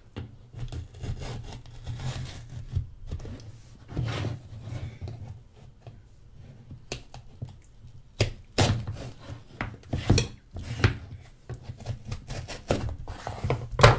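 A serrated table knife scraping and cutting through the seal stickers on the end of a cardboard phone box, with irregular rubbing strokes and several sharp knocks as the box and knife are handled on a wooden table.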